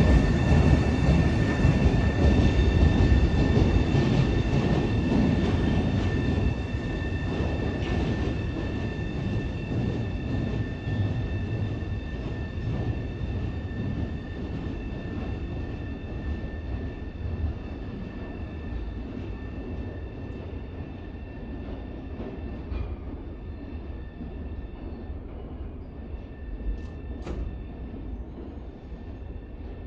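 New MBTA Red Line subway train (CRRC 1900-series car) pulling away from the platform into the tunnel. Its rumble fades steadily as it recedes, over a steady high-pitched whine, with a couple of faint clicks near the end.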